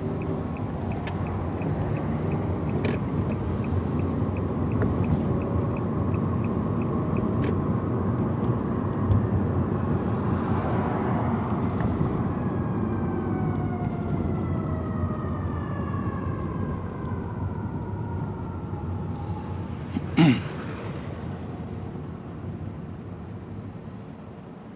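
Road and engine noise heard from inside a moving car, building as it pulls away. A light regular ticking runs through the first seven seconds or so, and there is one sharp knock about twenty seconds in.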